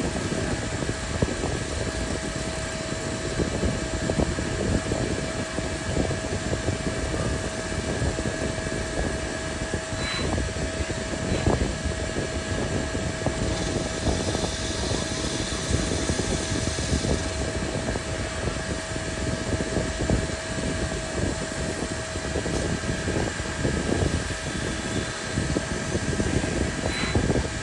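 CNC lathe running a G73 canned cycle, turning a ball radius: steady machine noise with a constant whine and a couple of faint clicks about ten seconds in.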